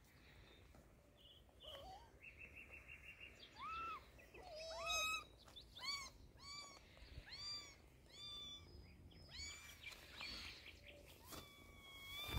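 Tabby kittens mewing: a run of short, high-pitched mews about one or two a second, ending with a longer drawn-out mew near the end.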